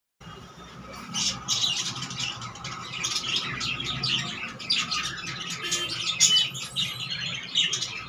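Budgerigars chattering: a dense run of rapid chirps and short squawks with no pause, louder about a second in and again just past six seconds.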